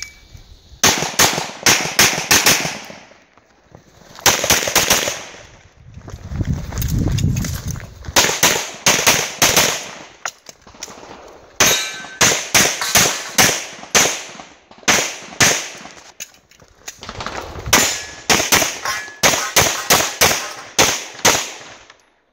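Rapid pistol fire from a single-stack 1911-style Classic Division pistol on a practical shooting stage: dozens of shots in quick strings, many in fast pairs, broken by short pauses for movement and reloads. A low rumble around seven seconds in comes between strings.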